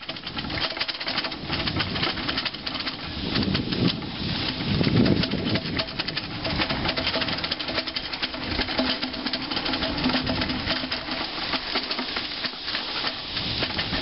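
Bicycle riding down a concrete path: a continuous noisy clatter of tyres, frame and the hand-held camera shaking over the bumps, dense with small knocks.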